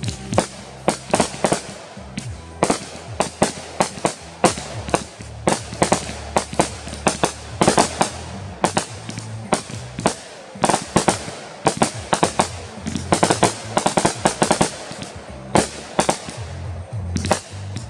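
Consumer aerial fireworks cake firing continuously: a rapid string of sharp shots and bursting cracks, often several a second in quick clusters.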